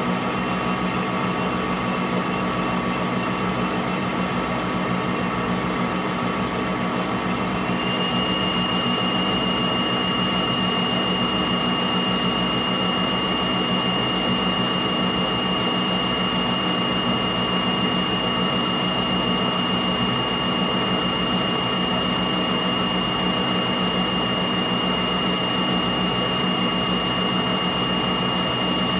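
Metal lathe running steadily, boring a land inside a bullet-mold cavity, its drive giving a steady hum and whine. A high steady whine joins about eight seconds in and holds.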